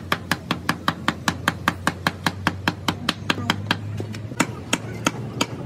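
Hand hammer tapping a wedge into the wooden support blocks under a tractor engine: rapid sharp taps in an even rhythm, about six a second.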